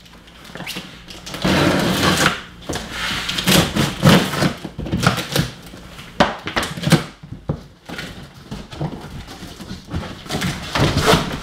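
Knife cutting through packing tape and cardboard on the top of a box, irregular scraping and rasping strokes with short knocks, then cardboard flaps being pulled open near the end.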